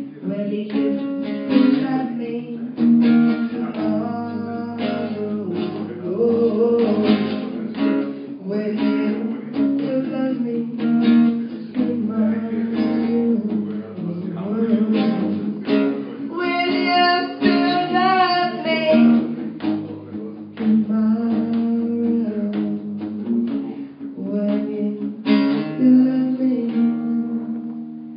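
Acoustic guitar strummed in a live song, with a woman's voice singing over it through a microphone and PA.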